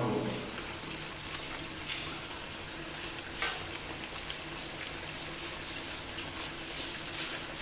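Naan frying on a hot non-stick pan, a steady faint sizzle of butter on the hot bread and pan, with a few brief soft strokes as the butter is spread.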